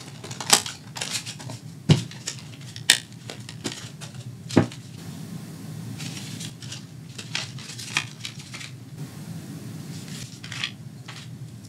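A cardboard product box being opened and its plastic packaging handled: scattered sharp clicks and snaps of plastic being popped loose, with light rustling between them. The loudest snaps come in the first five seconds.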